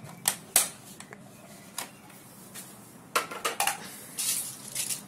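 Plastic airsoft BBs being loaded into a spring rifle's magazine: scattered small clicks and rattles, with a quick run of clicks about three seconds in and a brief rattle just after.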